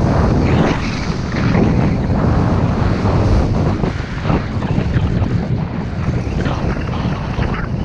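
Wind buffeting an action camera's microphone at skiing speed, a loud, gusty rumble, with skis hissing and scraping over groomed snow in short swishes about once a second.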